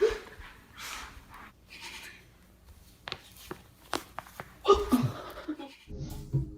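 Breathing and exhales, then a quick series of four or five sharp cracks about three seconds in, the spine's joints popping as a person's back is stepped on. A short laugh-like vocal sound follows.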